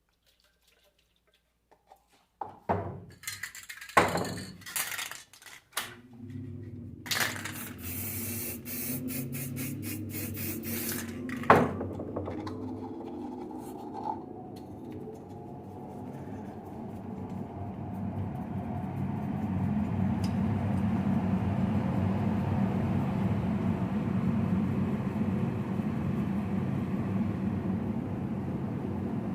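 Alternator parts being cleaned with a blasting jet: a few knocks as parts are handled, a loud pulsing hiss of blasting for a few seconds, another sharp knock, then a steady rushing noise that builds up and holds.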